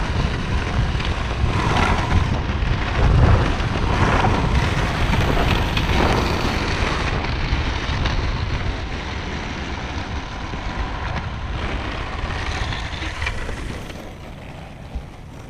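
Wind rushing over the camera microphone mixed with the rumble of board wheels rolling fast on asphalt, fading near the end.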